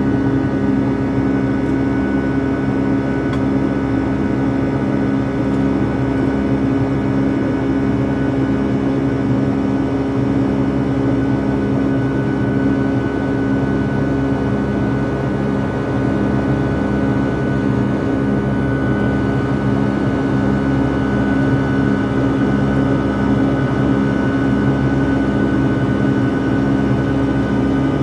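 Airplane in flight, its engines giving a steady, unchanging drone with several constant hum tones, as heard from inside the passenger cabin.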